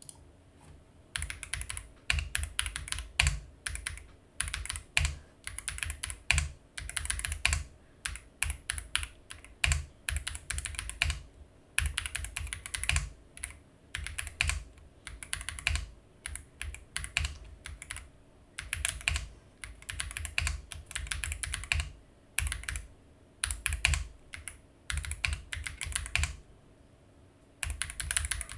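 Typing on a stock M71 mechanical keyboard with its factory switches: runs of fast keystroke clicks broken by brief pauses.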